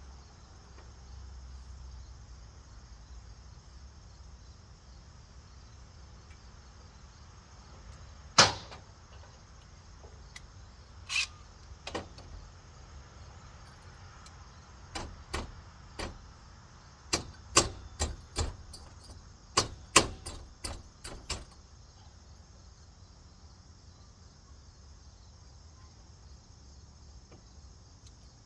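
Steady high insect chirring, like crickets, with a series of sharp knocks and clicks in the middle stretch, the loudest about eight seconds in and again around twenty seconds.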